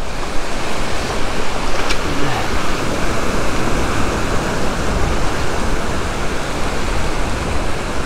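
Ocean surf breaking and washing up the sand close by: a steady, loud rush of noise with a rumbling low end.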